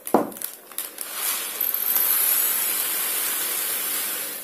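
A short knock of a ceramic mug at the start, then dry buckwheat groats pouring steadily into the mug as a hiss for about three seconds.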